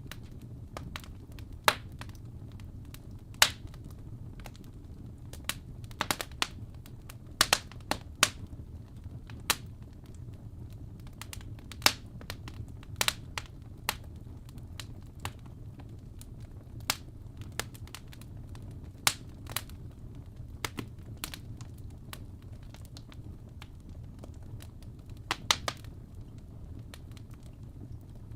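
Fire crackling: irregular sharp pops and snaps, a few clustered close together now and then, over a steady low rumble.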